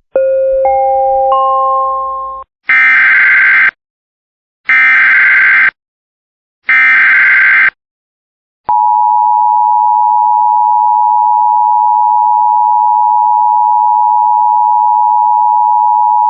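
A brief stack of electronic tones, then three one-second bursts of Emergency Alert System SAME header data a second apart, then the EAS two-tone attention signal held steady for about eight seconds. Together these mark the start of a new alert broadcast.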